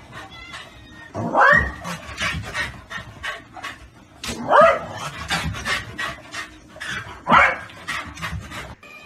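A pet's short rising calls, three of them about three seconds apart, with quick clicks in between.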